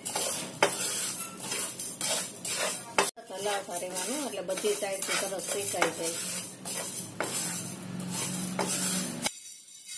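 Wooden spatula stirring whole coriander seeds as they dry-roast in a nonstick pan: repeated scraping, rattling strokes of the seeds sliding over the pan. The stirring stops near the end.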